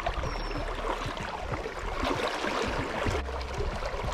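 Small creek water flowing, a steady rushing with fine trickling.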